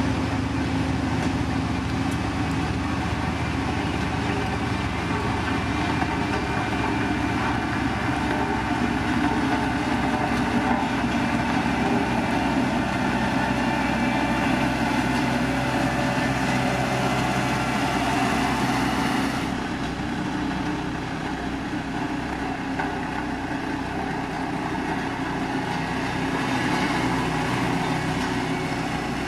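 Heavy road-construction machinery running steadily on a diesel engine. About two-thirds through, the higher hiss drops away suddenly while the engine note carries on.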